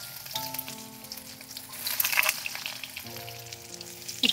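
Nuggets being dropped into hot oil in a small wok, sizzling steadily with scattered sharp crackles.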